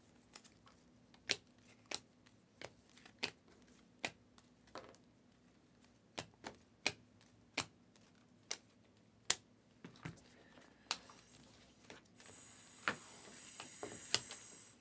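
Panini Prizm basketball cards being flipped one at a time off a hand-held stack, each card giving a sharp click, irregularly about every half second to a second. A steady hiss comes in about three seconds before the end.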